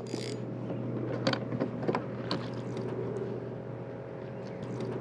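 A few short, sharp clicks and knocks from handling a Penn Battle II spinning reel and fishing rod, the loudest about a second in, over a steady low mechanical hum.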